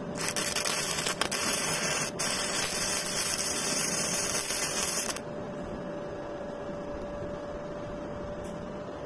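Gasless MIG welder running self-shielded flux-core wire, the arc crackling steadily while a weld bead is laid for about five seconds. It then stops abruptly, leaving a faint steady hum.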